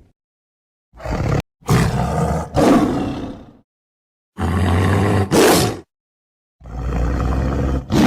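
A tiger roaring: about four separate roars of one to two seconds each, with dead silence between them.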